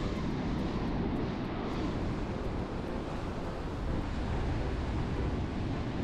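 Steady rush of surf on a beach mixed with wind blowing on the microphone, heaviest in the low rumble and without any clear pitched sound.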